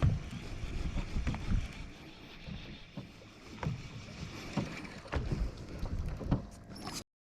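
Sounds aboard a small fishing boat at sea: a steady wash of wind and water with irregular low thumps. The sound cuts off abruptly near the end.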